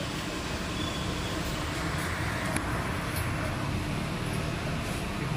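Steady road traffic noise with a low engine hum, swelling briefly about halfway through, with a faint click.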